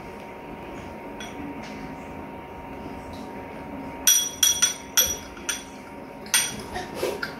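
A spoon clinking against a dish: a quick run of sharp, briefly ringing clinks about four seconds in, and a few more near the end, over a faint steady hum.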